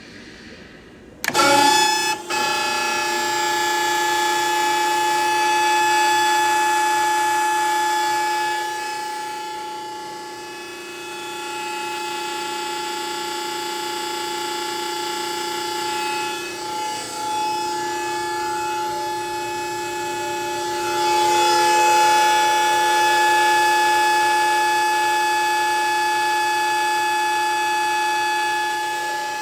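Hydraulic power unit's electric motor and pump starting up suddenly about a second in, then running with a steady whine to drive the cylinder through its retract stroke. The level dips and rises a few times along the way.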